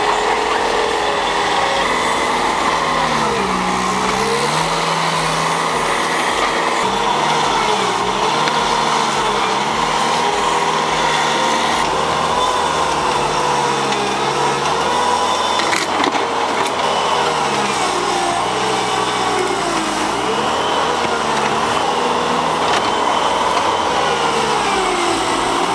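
Engine of a heavy working machine running steadily, its pitch sagging briefly and recovering several times as it takes load.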